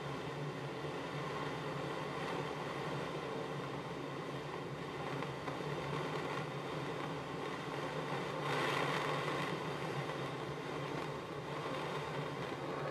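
Jeweller's blowpipe torch: a gas flame kept going by steady breath blown through the mouthpiece, a continuous rushing hiss. It swells for a moment about nine seconds in and drops off right at the end.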